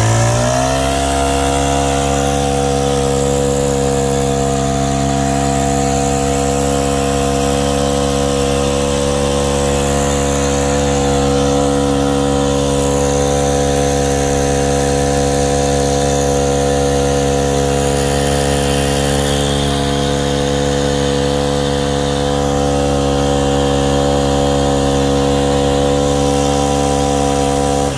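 Small petrol engine of a Sprayman engine spray pump, revving up within the first second and then running steadily at high speed under load while it pumps a long spray jet. It cuts off abruptly at the end.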